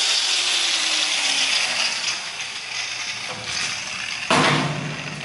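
Angle grinder coming off the cut, its motor winding down with a falling whine over the first two seconds. About four seconds in it is switched on briefly and fades again.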